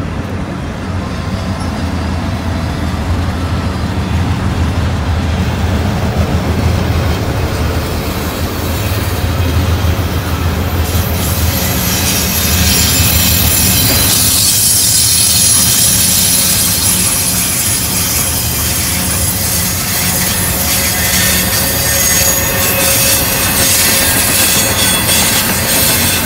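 Freight train rolling past with a steady low rumble; about halfway through, high-pitched wheel squeal and metallic screeching from the cars join in and carry on.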